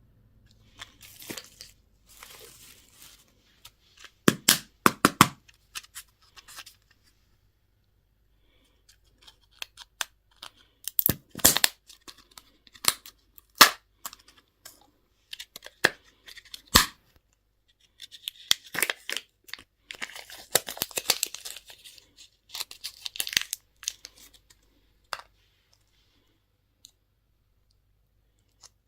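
Candy packaging being torn and crinkled open by hand: irregular bursts of rustling and tearing plastic, with several sharp clicks and snaps in between and short pauses.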